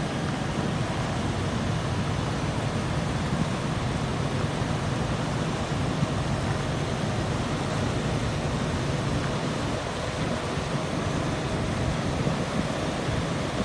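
Steady wind noise on the microphone over the low, even running of a semi truck's diesel engine as the tractor-trailer reverses slowly.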